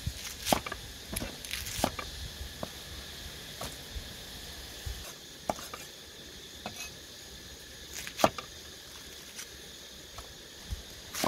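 Cleaver cutting through cabbage and striking a wooden chopping block: irregular single knocks about once a second, the loudest about eight seconds in.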